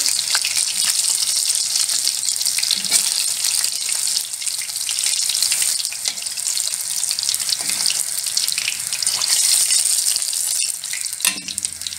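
Besan-battered chicken pieces deep-frying in hot oil: a steady, crackling sizzle.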